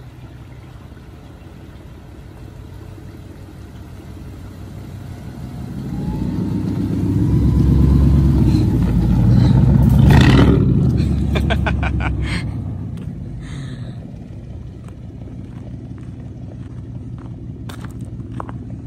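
Straight-piped 1997 Ford F-150 exhaust rumbling as the truck approaches, passes close by about ten seconds in, and drives away. The sound swells to its loudest at the pass and then fades.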